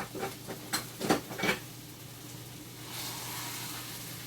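Kitchen clatter of a baking pan and utensils: a quick run of knocks and clinks in the first second and a half, then a steady hiss that starts about three seconds in.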